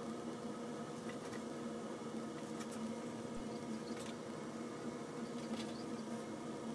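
Steady low electrical hum of room tone, with a few faint soft ticks scattered through it.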